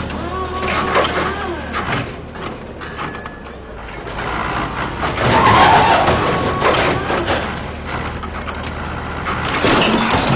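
Forklift driven erratically with its tyres squealing. Near the end comes a crash as it rams into stacked cardboard boxes and wooden crates.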